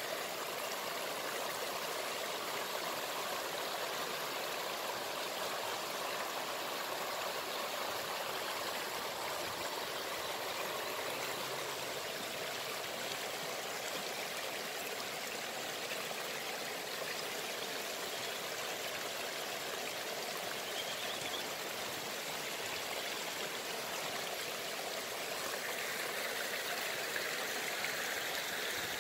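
Water washing and splashing over a rocky shore edge, a steady rush with no pause.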